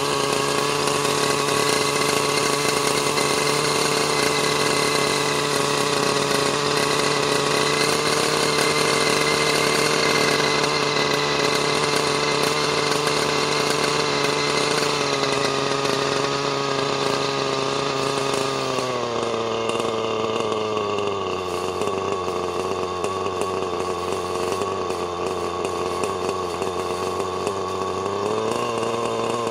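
Thunder Tiger Redline RL-53H nitro glow engine on an RC helicopter running with no rotor blades fitted, during its break-in on a brand-new engine. It runs at a steady speed, then about halfway through its pitch falls over a few seconds to a lower speed and holds there before climbing back up near the end.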